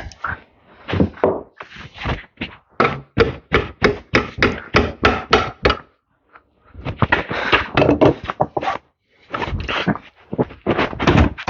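A hammer striking a screwdriver used as a punch to drive out a stubborn pin: sharp metal knocks in quick runs of about four a second, with brief pauses about six and nine seconds in.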